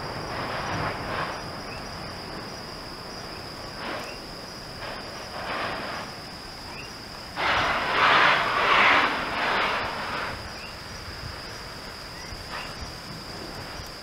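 Kīlauea lava fountain erupting from a fissure, giving off uneven surges of rushing, gushing noise. The strongest surge starts suddenly about seven seconds in and lasts a few seconds. A steady high-pitched thin tone runs underneath.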